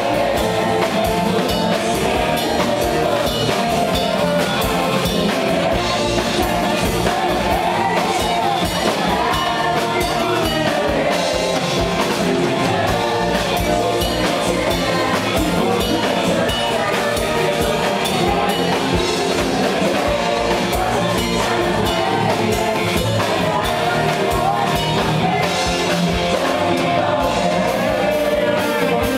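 Live rock band playing loud and steady: electric guitars and a drum kit with a sung vocal line.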